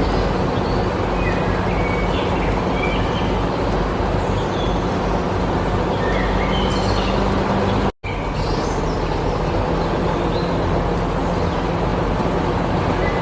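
A small motor running steadily with a constant hum, with birds chirping over it; the sound cuts out for an instant about eight seconds in.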